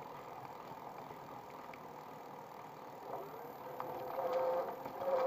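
Whine of a 250 W electric bicycle's hub motor, picked up much louder than it sounds in life. It is a steady tone that rises slightly in pitch and grows louder a little past halfway.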